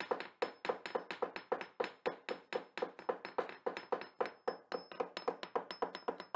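Rapid, evenly spaced tapping knocks, about four a second, each with a short hollow ring, over a faint high steady tone.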